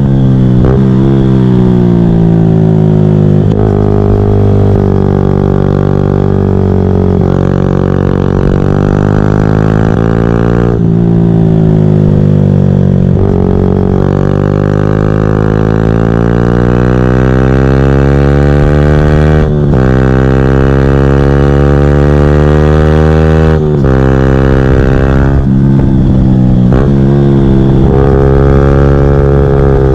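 2014 Yamaha YZF-R125 single-cylinder 125cc four-stroke on a full GPR Furore exhaust with no catalyst and no baffle, accelerating hard. Its pitch climbs and then drops at each gear change, several times over.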